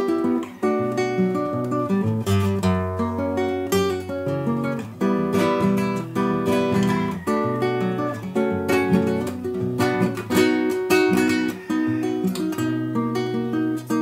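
Acoustic guitar music: a continuous run of plucked and strummed chords with quick, rhythmic strokes.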